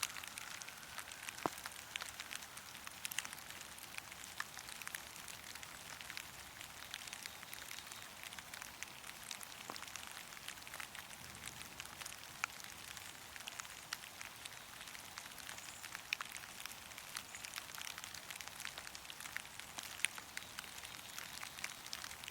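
Steady rain falling in a forest: a constant hiss of rain with many separate drops ticking and tapping close by, a few of them louder.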